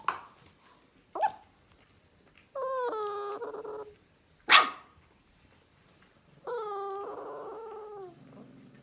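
Central Asian Shepherd puppy crying: two long whines, each about a second and a half and falling in pitch. Between them comes one sharp, loud yip, and there are two shorter yips in the first second and a half.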